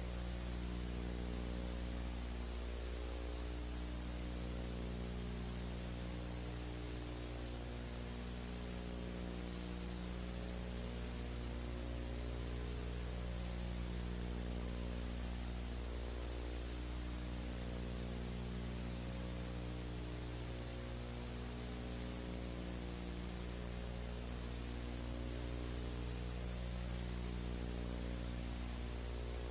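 Steady electrical mains hum with an even hiss behind it, unchanging throughout.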